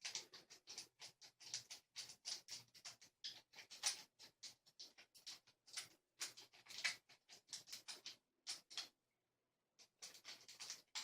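Homemade pick rake scraping and clicking over the pin tumblers of a Master Lock 570 padlock, an irregular run of small quick metallic clicks with a short pause near the end.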